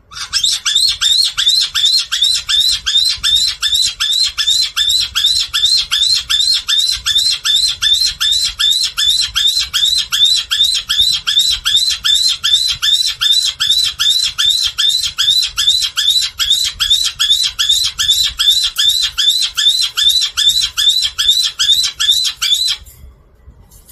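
Black-headed caique screaming: a fast, even run of short, shrill repeated calls, about three a second, kept up for over twenty seconds and cut off abruptly near the end.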